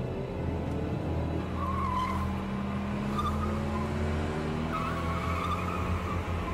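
Cars speeding in a chase, engines revving with rising pitch. Tyres squeal twice, about a second and a half in and again near five seconds.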